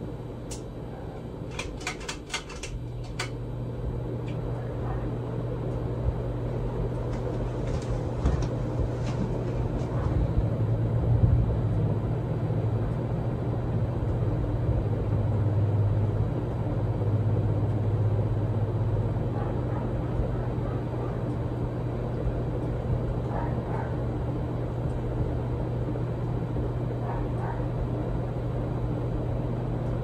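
Hunter 2nd Century ceiling fan running with a steady low motor hum. A few clicks come about two seconds in; the hum then gets stronger and the fan grows louder over the next several seconds before settling into a steady run.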